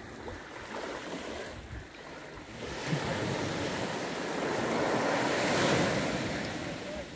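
Small waves washing up a sandy beach; the rush of surf swells about three seconds in and eases off near the end.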